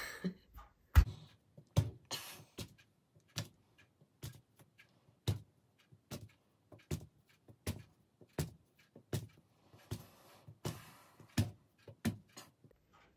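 Round cookie cutter pressed down through soft rolled dough onto a wooden pastry board, tapping again and again as rounds are cut one after another: an irregular run of short sharp taps, about one or two a second.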